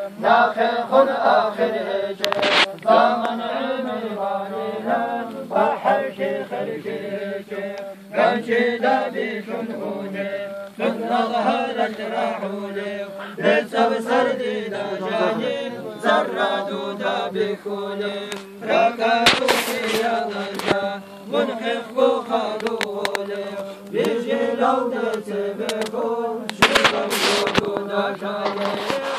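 A group of men chanting together in unison, a steady low drone whose melody rises and falls in repeated phrases. Two short bursts of rushing noise cut across it later on.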